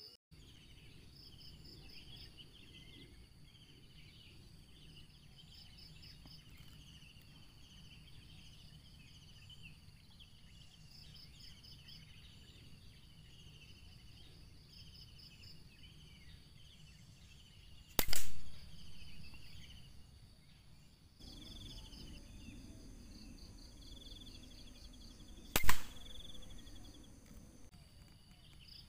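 Two sharp rifle shots, the first about two-thirds of the way in and the second about seven and a half seconds later. Under them, insects trill in short pulsing runs and birds chirp.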